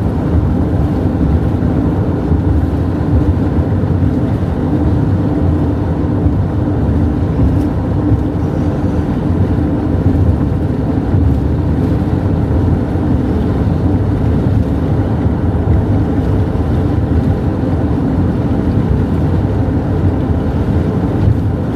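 Steady low road and engine drone inside a moving car's cabin.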